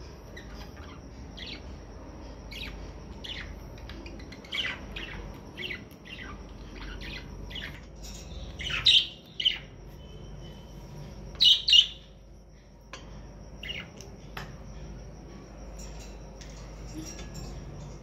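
Caged parakeets chirping again and again, with two loud bursts of harsh squawks about halfway through, a few seconds apart.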